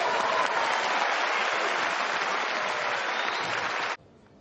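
Stadium tennis crowd applauding at the end of a rally, steady and loud, cut off abruptly about four seconds in.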